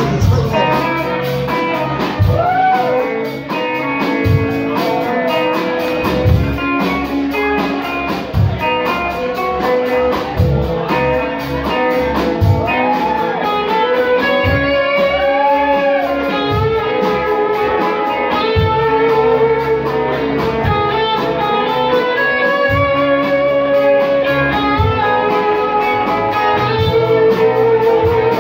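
Rock band music: an electric guitar plays a bluesy lead with repeated string bends over bass and drums.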